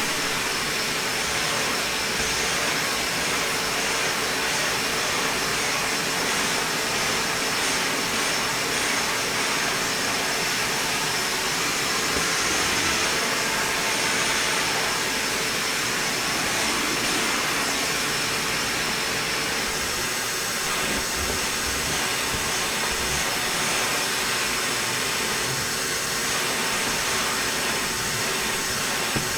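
Vacuum cleaner running steadily, a continuous rushing whir of motor and airflow with a faint steady hum in it.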